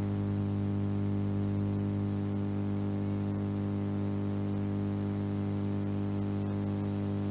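Steady electrical hum with a buzz of evenly spaced overtones and a faint hiss, unchanging throughout: mains hum picked up in the recording.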